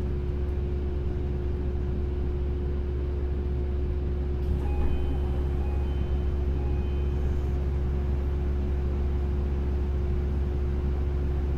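Onboard running sound of a Tokyo Monorail 10000 series (IGBT-VVVF) car: a steady low rumble with a constant hum. A few faint short high tones come in about five seconds in.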